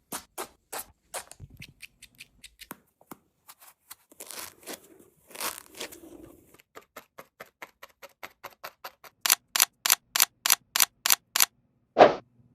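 Felting needle stabbed repeatedly into wool, a run of short pokes about three a second, with a softer rustling of the wool a few seconds in. The pokes get louder near the end, finishing with one harder hit.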